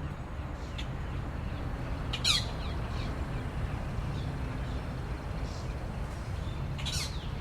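Two short bird calls, each falling steeply in pitch, a few seconds apart, over a steady low rumble.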